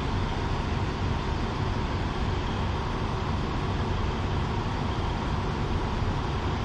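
Diesel train engine running with a steady low rumble and hum.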